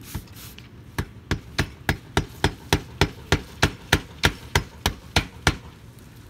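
Hammer driving nails: about sixteen even blows at roughly three a second, starting about a second in and stopping near the end.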